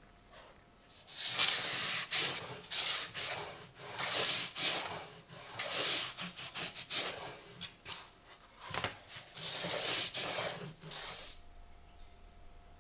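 Cloth rag rubbing along a steel bayonet blade to wipe on a freshly applied preservative coat: irregular rubbing and rustling strokes that start about a second in and stop about a second before the end.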